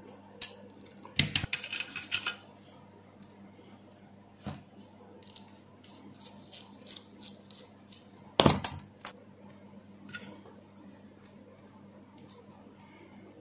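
Small metal parts clinking and scraping as the extension board's metal terminal strips and a metal-shafted hand tool are handled. The clinks are irregular: a quick cluster about a second in, a loud knock past the middle, and faint ticks between. A steady low hum sits underneath.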